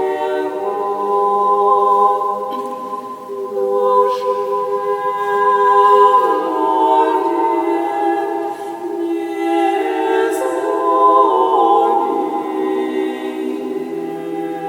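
Unaccompanied church choir singing Orthodox chant: several voices in harmony holding long chords that move to new pitches every second or two.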